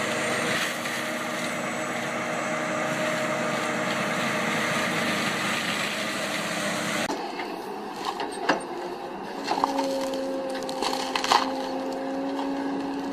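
Heavy wood-processing machinery running hard, with engine drone under a dense grinding noise. About seven seconds in the sound changes suddenly to a steady machine hum broken by several sharp cracks of wood splintering.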